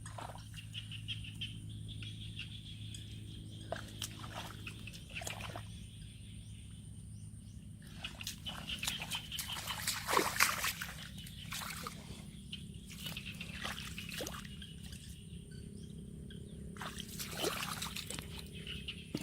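Water splashing and trickling in irregular bursts, loudest about ten seconds in, over a steady low hum.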